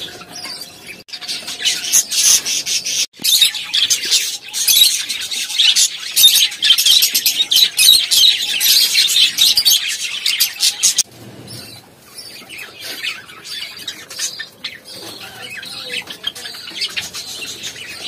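Flock of caged budgerigars chattering and chirping densely. About eleven seconds in it drops abruptly to quieter, sparser chirping.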